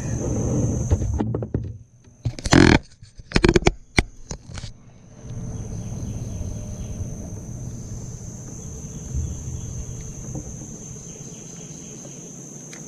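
Insects droning steadily in a high thin tone over a low rumble. A cluster of loud knocks and rustles comes about two to five seconds in.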